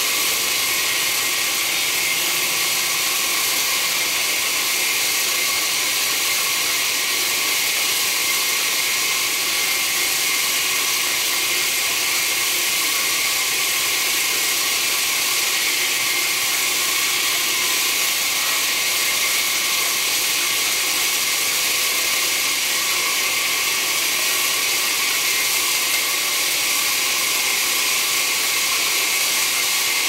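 Band sawmill cutting through a large log: a steady hiss of the blade in the wood over the machine's running noise, with faint steady tones, unchanging throughout.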